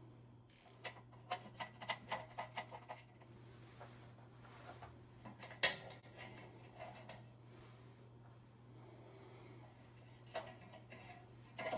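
Faint clicks and light knocks from the air hose and its fittings being handled, with one sharper click about six seconds in, over a steady low hum.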